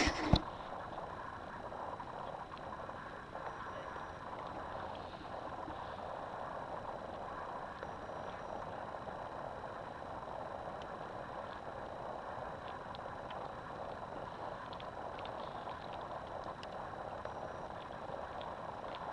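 Steady wash of lake water lapping, with one sharp knock just after the start.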